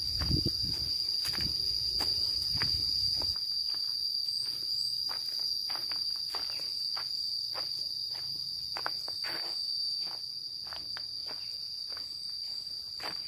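A steady high-pitched insect drone, with a person's footsteps on a path at walking pace, about two steps a second. A low rumble fades out after the first few seconds.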